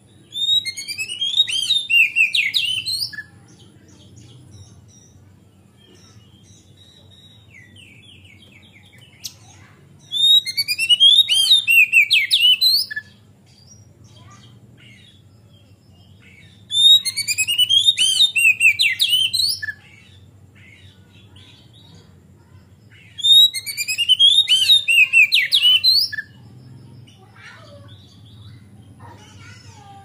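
Male oriental magpie-robin (kacer) in full song: four loud phrases of about three seconds each, rapid runs of high, sweeping notes, separated by pauses of several seconds.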